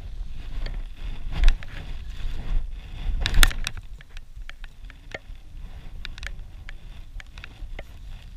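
Wind rumbling on the microphone, with rustling and clicking handling noise from the angler's clothing and fly line, and two louder bumps about a second and a half and three and a half seconds in.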